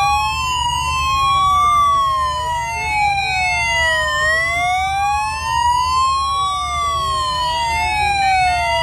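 Several police escort sirens wailing together, each rising and falling slowly, about once every five seconds, out of step with one another, over a low rumble.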